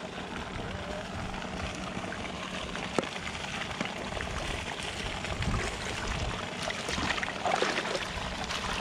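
Water splashing and pouring as a young elephant lying in a pool is scrubbed and doused from plastic bowls, the splashing busier near the end. A single sharp knock about three seconds in.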